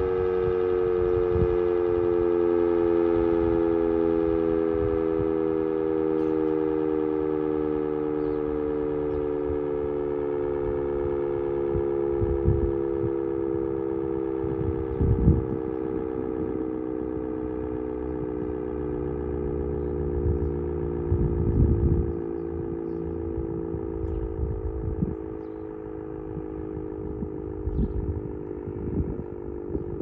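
Sentry 10V rotating outdoor warning siren winding down after its alert, its chord of several tones sliding slowly lower in pitch and fading. A low rumble runs underneath, with louder bumps about halfway through and again about two-thirds in.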